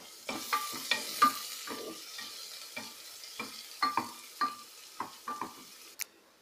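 Chopped onions frying in oil and ghee in an open pressure cooker, stirred with a spatula: a light sizzle under repeated scrapes and knocks of the spatula against the metal pot, about two a second, some ringing briefly. A sharp click near the end, then the sound stops.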